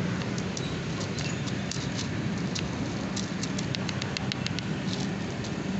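A cat eating kibble and wet food from a plastic tray while a plastic spoon works the food in: small sharp clicks, with a quick even run of about seven a second around the middle, over a steady low hum.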